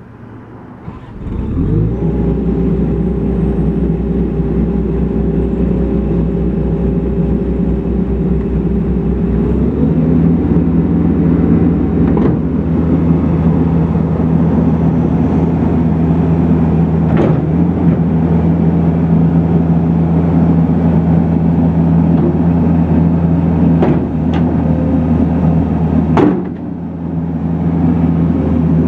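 New Holland L170 skid steer loader's diesel engine starting about a second in and running steadily, then throttled up to a higher, steady speed about ten seconds in. A few sharp knocks sound over the engine later on, and it sags briefly near the end before recovering.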